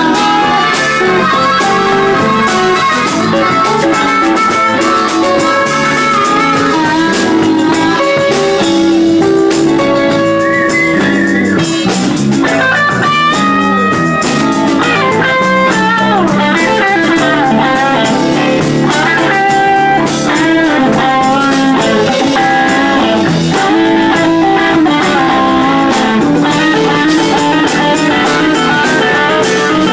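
Live rock band playing an instrumental break: an electric guitar plays a lead with bent notes over bass guitar and drums.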